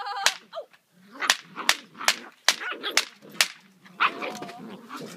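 A clapper snapped repeatedly, giving sharp cracks at an uneven pace of roughly two a second.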